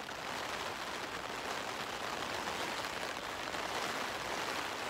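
A downpour of rain falling steadily on the fabric of an MSR Elixir 2 two-person backpacking tent, heard from inside the tent.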